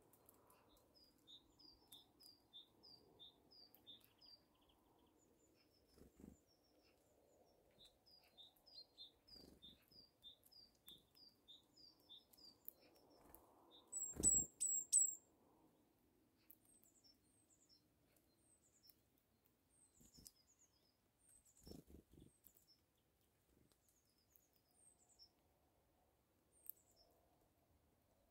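Small songbirds singing faintly: a two-note phrase repeated in quick runs, then a few louder, very high chirps about halfway through, with scattered high notes after.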